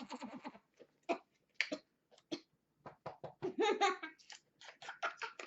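A person laughing and giggling in short, broken bursts, with the longest burst about three and a half seconds in.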